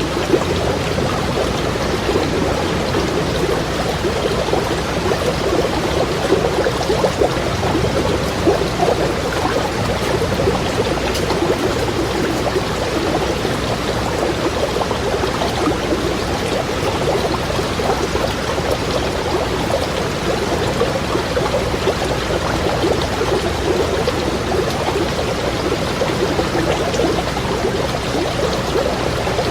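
Water stream babbling over stones, a steady continuous flow with fine bubbling and gurgling texture.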